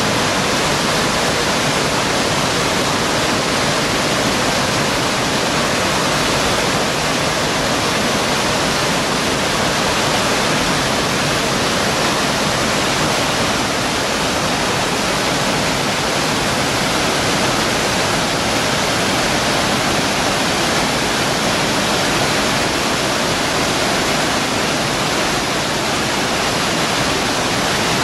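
Waterfall pouring over rock ledges: a steady, unbroken rush of falling white water, loud and even throughout.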